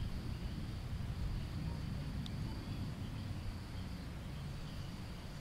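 Outdoor field ambience: a low wind rumble on the microphone under a steady, high-pitched insect drone, with one faint tick about two seconds in.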